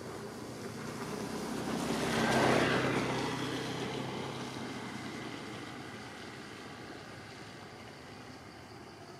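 A motor vehicle passing by: its engine grows louder to a peak about two and a half seconds in, then slowly fades away.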